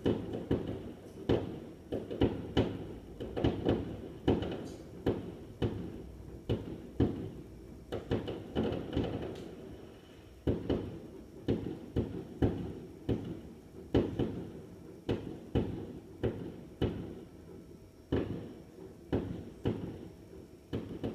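Fireworks going off: a continuous run of irregular dull bangs, one to three a second, each with a short echoing tail.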